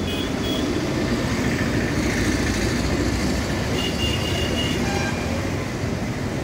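Steady outdoor traffic noise: an even rumble and hiss of passing vehicles, with a few brief high tones about four seconds in.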